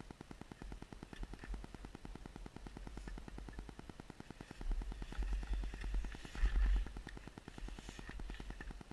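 Two-stroke snowmobile engine idling with a fast, even pulse. Low rumbling gusts swell louder between about five and seven seconds in.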